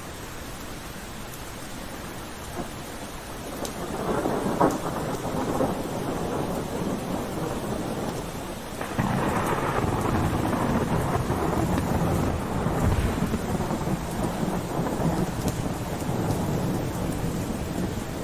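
Steady rain with rolling thunder: a rumble swells in about four seconds in, and a louder, longer roll starts at about nine seconds.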